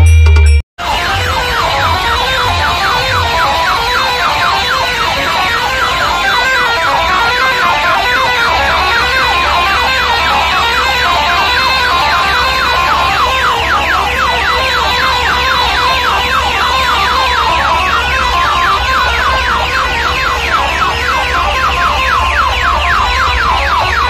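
A huge stacked DJ sound system blasting a rapidly repeating siren-like electronic warble. A steady deep bass drone comes in about eight seconds in.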